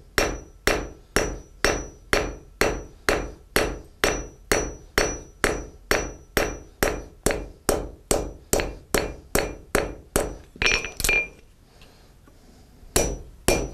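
Blacksmith's cross-peen hammer striking red-hot steel on an anvil in a steady rhythm of about two blows a second, each blow with a bright ring from the anvil, as the peen hammers a mane into a forged horse head. The blows lighten and stop for about a second and a half near the end, then two more fall.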